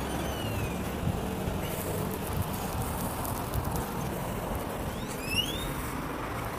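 Street traffic noise with wind on the microphone, plus two short high whistles: one falling about half a second in and one rising about five seconds in.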